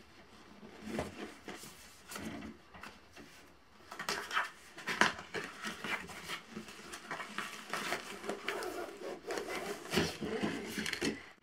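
Cardboard box being handled and opened: irregular rustling, scraping and light knocks of card, busier from about four seconds in, as the flap is lifted and the packed sleeping pad in its nylon stuff sack is slid out.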